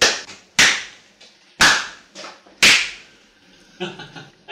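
Slow hand claps, single sharp claps about a second apart, each trailing off briefly: four loud ones and a couple of softer ones.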